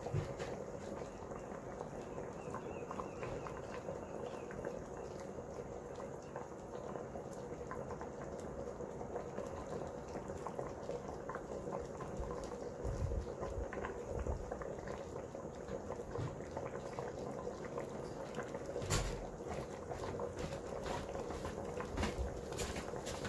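Pot of arroz caldo, chicken rice porridge, bubbling steadily at the boil with many small pops, and a few dull knocks about halfway through.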